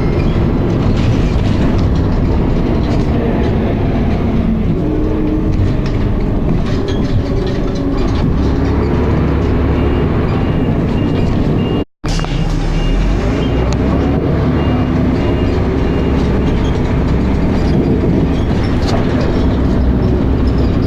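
Dennis Arrow double-decker bus heard from on board while driving: the engine and ZF automatic gearbox run continuously, and the engine pitch rises twice as it accelerates. The gearbox is slipping.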